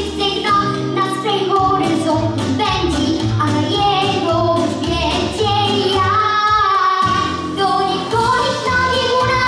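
A young girl singing a pop song into a microphone over backing music with a pulsing bass line; the bass drops out briefly about six seconds in.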